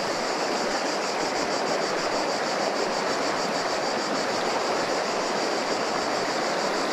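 Steady rushing of flowing river water, with a high, evenly pulsing buzz above it.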